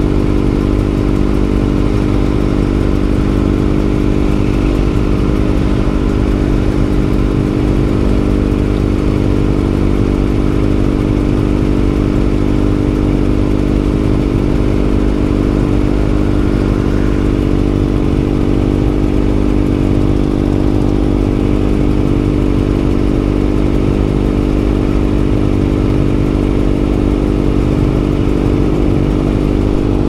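Kawasaki ZX-25R SE's 250 cc inline-four engine idling steadily through an SC Project titanium exhaust.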